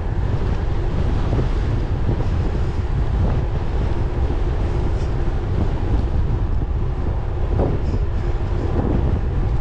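Wind buffeting the microphone of a bicycle riding at about 26 km/h: a steady low rumble, with a few light knocks.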